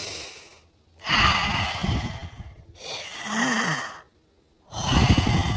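A person taking slow, deep, audible breaths in and out, about three long airy breaths with short pauses between them, one ending in a brief low voiced sigh.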